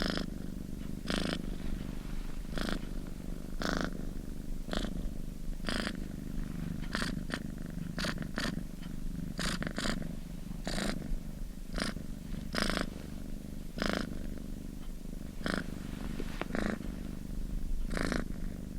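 Domestic cat purring steadily and close up: a continuous low rumble with a short breathy pulse about once a second.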